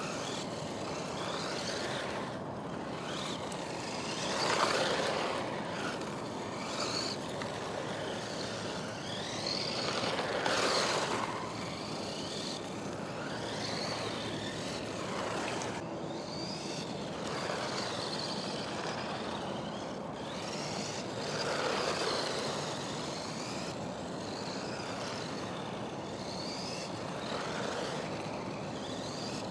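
WLtoys 144001 RC car's electric motor whining up and down in pitch as it is throttled and braked through drifting turns, with tyre noise on dirt. It grows louder several times as the car passes close, about four, ten and twenty-two seconds in.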